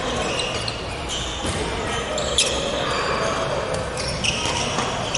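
Badminton hall sounds: a few sharp shuttlecock hits and short high shoe squeaks on the wooden court floor, over background voices echoing in the hall.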